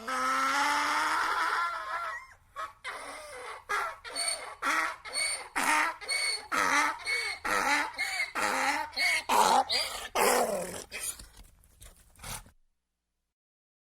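An animal calling: one long pitched call lasting about two seconds, then a series of short repeated calls, roughly one to two a second, that stop about twelve seconds in.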